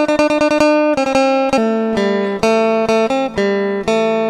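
Background music: acoustic guitar, plucked notes in a quick steady run with some strumming.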